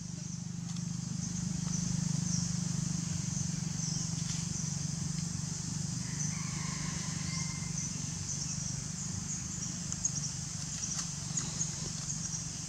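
Outdoor ambience: a steady high chirring of insects over a low steady hum. About six seconds in comes a short whistle-like call, and a few light clicks or leaf rustles follow near the end.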